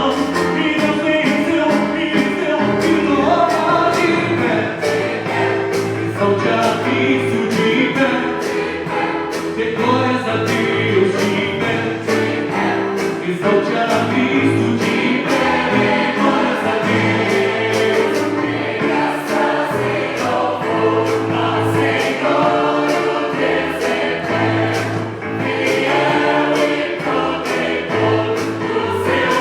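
Church choir singing a gospel cantata song, with keyboard accompaniment over a steady beat.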